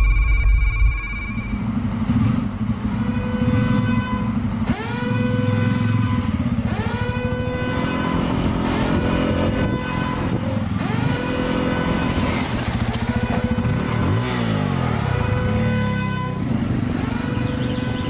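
Bajaj Pulsar 250's single-cylinder engine revving, rising quickly in pitch and levelling off again and again about every two seconds, with music underneath.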